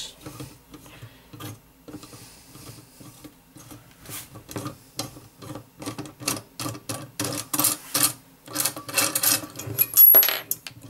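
Quick, sharp metallic clicks and scrapes of a valve spring compressor and valve keepers being worked on a Lexus LS400 aluminium cylinder head, pulling the keepers off a valve. The clicking gets faster and louder in the second half, with the loudest cluster near the end.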